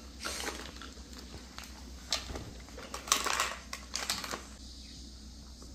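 Scattered light clicks, taps and rustles of small objects being handled, with a louder rustling burst about three seconds in.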